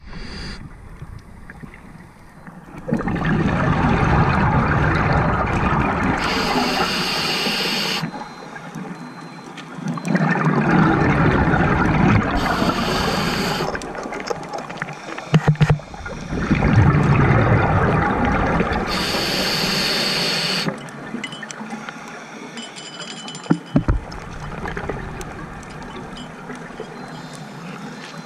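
Scuba diver breathing through a regulator underwater: three long rounds of rumbling, gurgling exhaust bubbles, each with a high hiss near its end, separated by quieter pauses. After the third breath it stays quieter, with a couple of sharp knocks.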